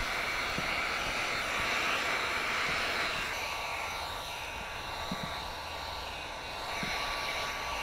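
Handheld electric heat gun running steadily, its fan blowing hot air to shrink window tint film onto a car's rear window glass.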